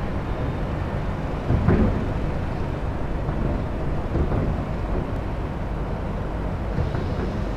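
Wind rumbling on the microphone over a steady low outdoor rumble across the water, with a stronger gust about one and a half seconds in.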